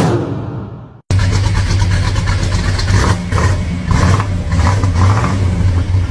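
A car engine dies away, then after a brief break another car engine runs with a steady low note, revved in repeated short blips.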